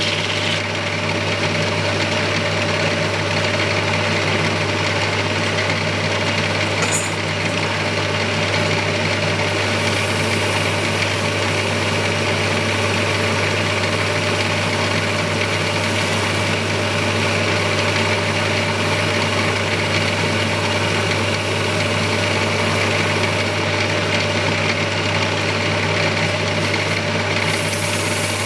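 Small electric motor of a wood lathe running at constant speed, with a steady low hum under an even hiss, as the turned wooden bowl spins on its faceplate during polishing.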